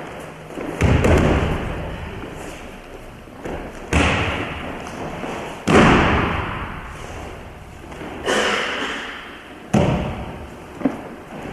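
About five heavy thuds of a person thrown onto padded mats and taking breakfalls, spaced one and a half to three seconds apart, each dying away over about a second.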